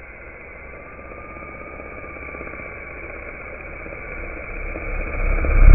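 Radio-controlled helicopter with a Hughes 500 scale body hovering, its rotor and drive giving a steady whine over a noisy whir. It grows louder and gains a low rumble near the end as it closes in on the microphone, with the rotor downwash buffeting it.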